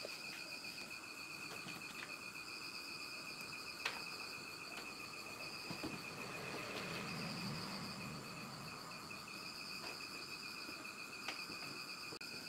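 Steady, high insect chirping, like crickets, with a second wavering band above it. A few sharp clicks stand out over it, the loudest near the end.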